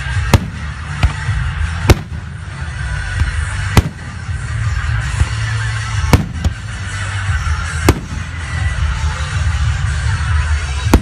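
Aerial firework shells bursting overhead: about eight sharp bangs at uneven gaps of one to two seconds.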